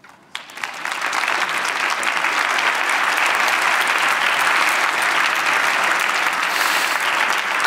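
Audience applauding. It breaks out about half a second in, builds within a second to full, steady applause, and eases slightly near the end.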